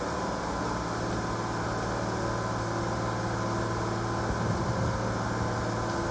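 A tracked excavator's diesel engine running steadily, a constant engine drone with no change in pitch.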